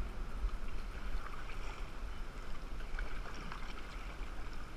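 Kayak paddle strokes dipping and splashing in river water, with water lapping at the bow and a steady low rumble of wind on the microphone.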